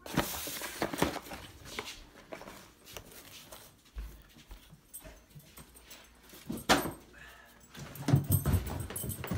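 A pet dog making vocal sounds, heard amid rustling and knocks from a phone being handled and carried, with a sharp loud knock about two-thirds of the way in.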